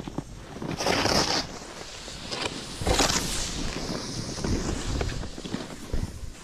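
Skis sliding and scraping over snow, with two louder hissing swells about a second and three seconds in, as the edges bite in turns. Wind rushes across the microphone throughout.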